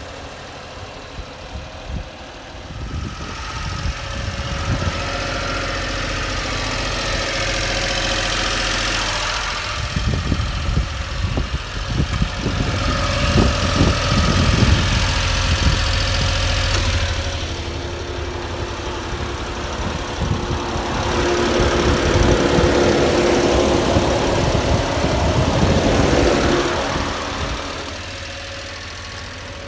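1993 Honda Acty HA4 kei truck's small three-cylinder engine idling. It gets louder in long stretches, about a third of the way in and again past the middle, when heard close up from beneath the truck near the exhaust.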